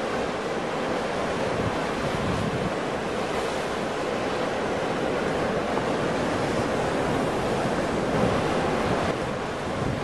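Ocean surf: waves breaking and washing in a continuous, even rush of noise, a little louder in the second half.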